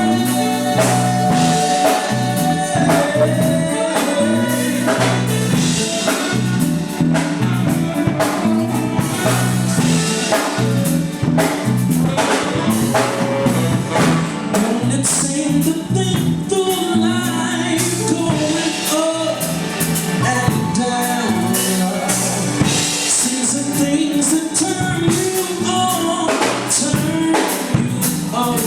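Live band playing a soul groove on drum kit and other instruments, with singing over it.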